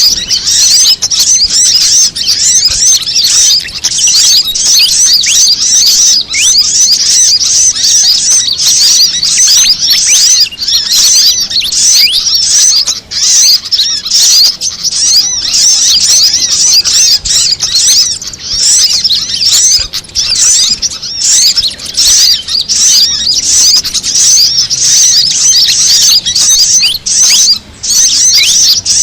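Bird-lure recording of fantail (kipasan) calls mixed with brown-throated sunbird (kolibri kelapa) and female sogon calls: a loud, unbroken stream of rapid, high-pitched chirps and short twittering glides, many overlapping.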